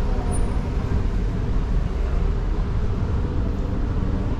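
Street traffic: a steady low rumble of vehicle engines close by.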